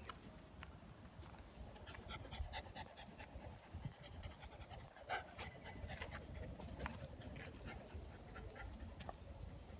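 Two young dogs panting during play, with scattered short sharp clicks and a quick run of them a couple of seconds in.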